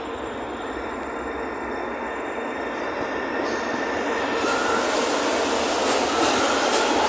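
São Paulo Metro train running past on the rails, its noise slowly growing louder, with an electric motor whine rising in pitch from about four and a half seconds in as the train picks up speed.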